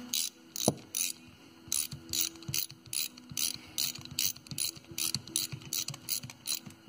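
Hand ratchet wrench clicking on each back-stroke as housing bolts are run down, in a quick, even rhythm of between two and three strokes a second.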